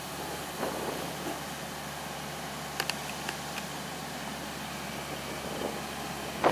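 Excavator's Isuzu four-cylinder diesel engine idling steadily, with a few light clicks about three seconds in.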